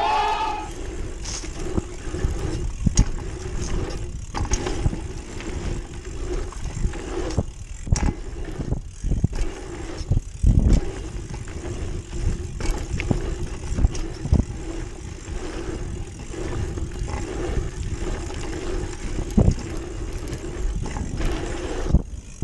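Mountain bike ridden fast down a dirt jump trail, heard from a GoPro on the rider: tyres rumbling over packed dirt, wind buffeting the microphone, and repeated knocks and thuds as the bike hits bumps and lands jumps. A short gliding sound comes right at the start.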